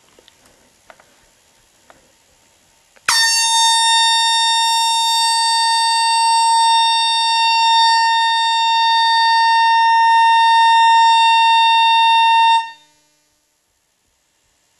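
A loud, steady horn held on one pitch for about nine and a half seconds. It starts suddenly about three seconds in and cuts off near the end.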